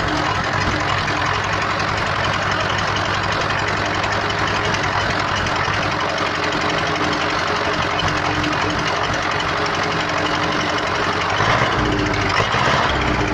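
MTZ-80 tractor's diesel engine idling steadily with a fast, even tapping knock from the valve gear: a knocking valve.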